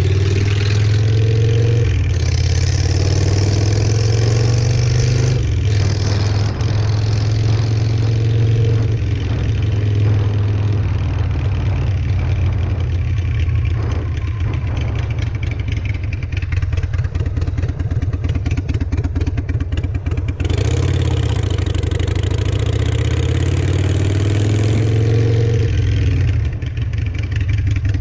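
Harley-Davidson Sportster XL883's air-cooled V-twin running through shotgun exhaust pipes with Thunder Torque inserts, revving up through the gears with brief dips at each shift. In the middle it eases to a slower, choppier run, then pulls up in pitch again and shifts near the end.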